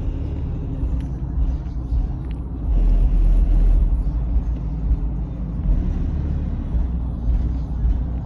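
Deep bass from 12-inch Audio Pipe TXX-BDC4 subwoofers driven by a Taramp 8,000-watt amplifier, playing music through a Cadillac XTS and heard mostly as a low rumble. The bass hits swell louder about three seconds in and again briefly near the end.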